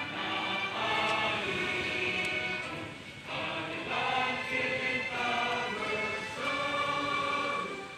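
A choir singing a slow song in long held notes, with a short break between phrases about three seconds in.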